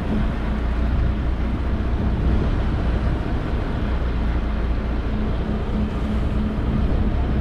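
Fishing boat's engine running steadily at sea, a constant low hum with an even rushing noise over it.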